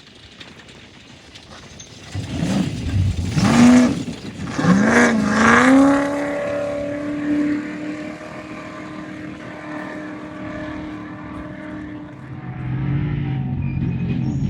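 Off-road race vehicle's engine revving hard, its pitch climbing twice with a gear change between, then holding a steady note that slowly fades. A second, lower engine note comes in near the end.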